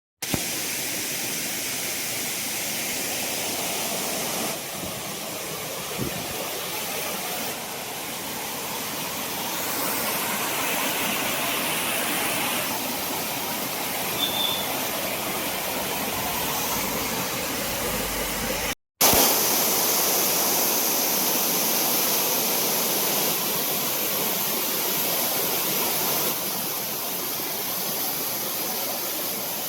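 Water rushing down a monsoon-swollen waterfall, a steady even noise. Its level and tone shift abruptly several times, and it drops out briefly about two-thirds of the way through.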